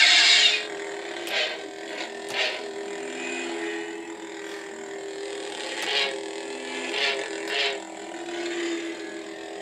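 Hasbro Darth Vader Force FX lightsaber's electronic hum, steady and slightly wavering, broken by short sound-effect bursts set off as the saber is moved. The loudest burst comes right at the start, then several smaller ones.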